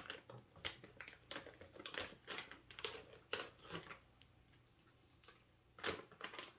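Plastic snack pouch of Hello Panda biscuits crinkling in the hands as it is handled and pulled at its top, a run of irregular crackles with a louder one near the end.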